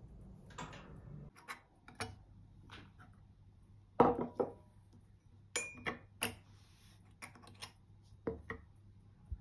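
Metal IKEA coasters clinking and clacking as they are handled, taken from their holder and set down on a table: about a dozen sharp knocks, the loudest about four seconds in.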